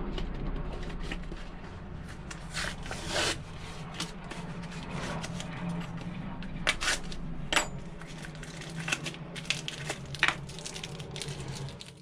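Blister-card pack of metal epoxy putty being opened and handled by hand: plastic crinkling and rustling with a series of sharp clicks and small knocks on the workbench, over a steady low hum.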